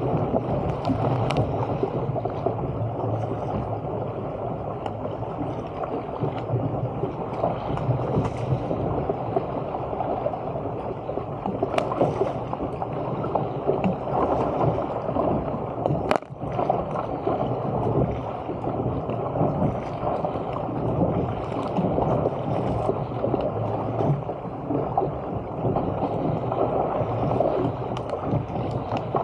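Water rushing and splashing along the hull of a Stealth 475 fishing surfski paddled at speed, with paddle-stroke splashes and spray hitting the boat-mounted camera. The wash is steady and loud throughout.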